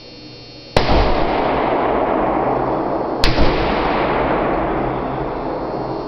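Two pistol shots from a 1911A1 .45 ACP firing semi-wadcutter reloads, about two and a half seconds apart, the first just under a second in. Each sharp crack is followed by a long echo that dies away over a couple of seconds.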